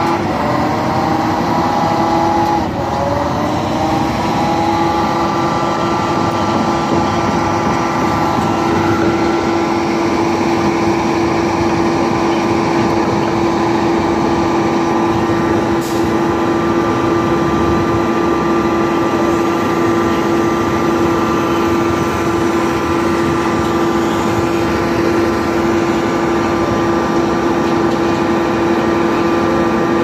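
A motor running steadily with a constant hum. Its pitch dips and recovers about two to four seconds in, and a single sharp click comes about halfway through.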